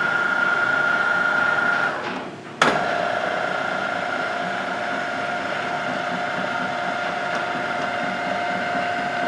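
A 1982 Tuda Jumbo 1250/4000 engine lathe's power carriage drive whining steadily as the carriage travels along the bed. The whine dies away about two seconds in. A sharp clack follows, then the drive runs again with a steady, lower-pitched whine.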